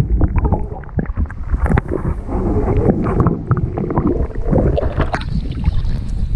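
Water sloshing and gurgling around an action camera mounted low on a small boat's hull, the microphone dipping under the surface, with frequent knocks and splashes against the hull.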